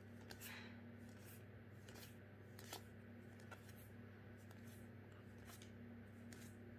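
Faint swishes and soft ticks of Magic: The Gathering cards being slid one at a time from the front of a small hand-held stack to the back, at an uneven pace, over a low steady hum.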